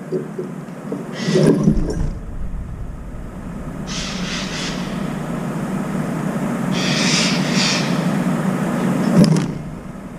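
A deep vehicle rumble swells slowly for several seconds and drops away suddenly near the end, with a few short hissy patches along the way.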